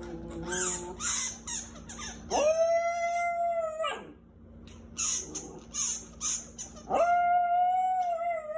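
Small black-and-tan dog howling twice, each a steady held note about a second and a half long that drops away at the end.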